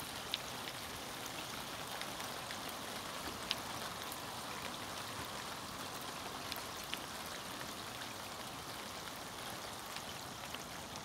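Light rain falling on the water and moored boats: a steady soft hiss with scattered sharp drop ticks.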